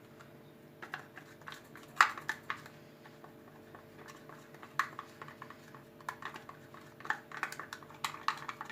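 Hands mixing crumbled ghriba cookies with yogurt in a bowl: irregular light clicks and crackles, with one sharper tap about two seconds in.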